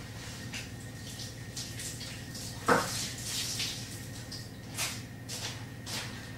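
A damp cloth wiping down a kitchen worktop in a series of short swishing strokes, with a single sharp knock a little under three seconds in.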